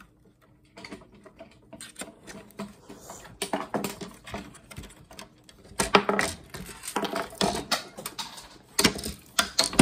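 Irregular clicking, tapping and clattering of small hard parts and tools being handled while an old monitor is taken apart, with a few louder knocks about six seconds in and near the end.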